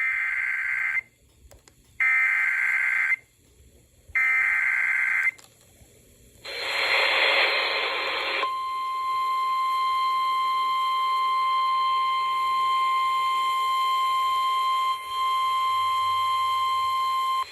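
Emergency Alert System broadcast over FM radio: three roughly one-second bursts of the SAME digital header tones, about a second apart, then about two seconds of hiss. After that comes the steady single-pitch weather-radio attention tone, held for about nine seconds, which signals an alert before the spoken severe thunderstorm warning.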